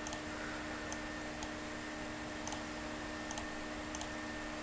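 Computer mouse button clicks: about ten short sharp clicks, several in quick pairs like double-clicks, over a faint steady electrical hum.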